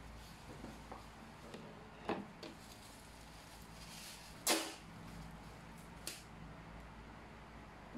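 Light handling of a bubble-wrapped parcel on a wooden desk: soft crinkling of the plastic bubble wrap under pressing hands, with a few short knocks, the loudest about halfway through.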